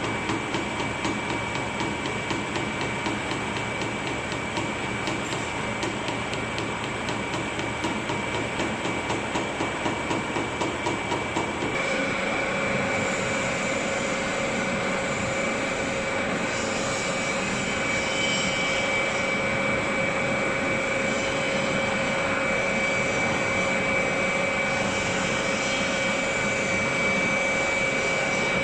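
Sawdust briquette-making machinery running. It pulses fast and regularly for the first twelve seconds or so. Then it changes suddenly to a steadier running sound with a steady whine.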